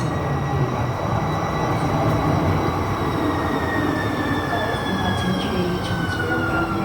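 Muni Siemens S200 light rail car coming in on the track: a low rumble under a high steady whine that drops in pitch over the last couple of seconds.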